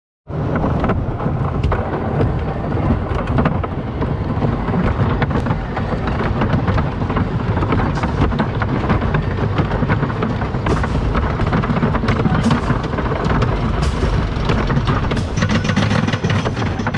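Wooden roller coaster train rolling over its wooden track with a loud, steady rumble, with sharp clacks that come more often in the second half as it reaches the lift hill.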